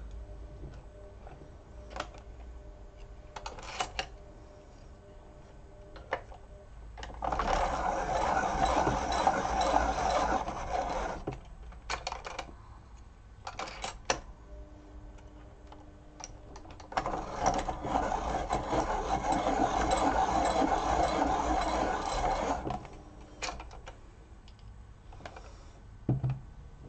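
Electric pencil sharpener sharpening coloured pencils twice, each run about four to five seconds long with an abrupt start and stop. Light clicks and taps of pencils being handled come before, between and after the two runs.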